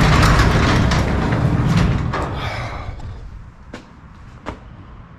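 Sectional garage door being pushed up by hand, its rollers rumbling and rattling along the steel tracks until it comes to rest about two and a half seconds in. A couple of sharp clicks follow.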